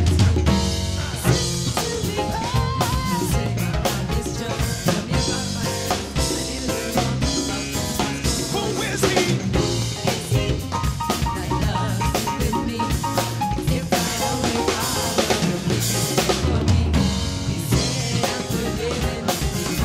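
Live gospel band music with a drum kit beat, bass guitar, piano and hand percussion.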